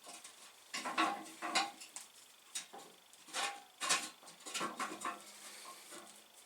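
Metal parts and tools clinking and clattering as they are handled, a series of irregular knocks, some with a short metallic ring.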